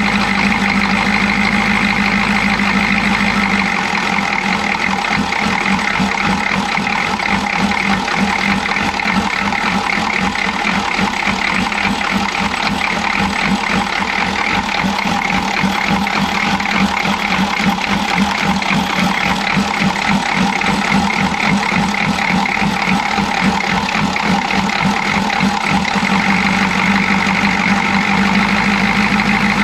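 Chevy G20 van's 6.2 L diesel V8 idling roughly with the air cleaner off, its beat uneven and pulsing, most markedly from about four seconds in until near the end. The engine is missing, which the owner puts down to a timing problem.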